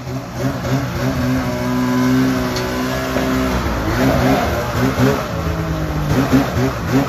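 Snowmobile engine revving in short repeated blips, with a steadier held rev in the middle, as the sled is driven up a ramp into an enclosed trailer.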